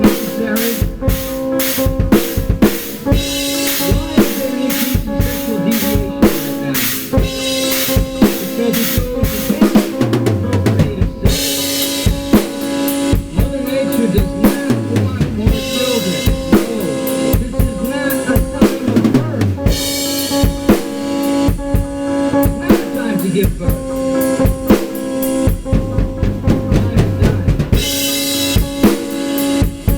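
Improvised drum-kit playing on Gretsch and Ludwig drums: rapid bass drum, snare and tom strokes with rimshots and bursts of Paiste cymbal crashes. A steady droning tone holds underneath.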